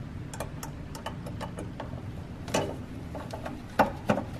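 Small plastic clicks and taps as a bulb socket is worked into a 2019 Mitsubishi Outlander's headlight housing to line up its locking tabs. The sharpest clicks come about two and a half and nearly four seconds in.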